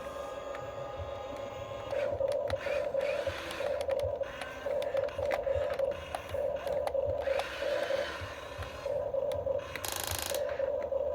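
Radio-controlled toy construction vehicle: a steady electronic tone pulsing on and off in short pairs, with small clicks and brief whirs. There is a short hiss about ten seconds in.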